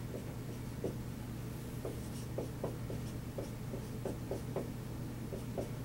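Dry-erase marker writing on a whiteboard: a run of short, irregular marker strokes, over a steady low hum.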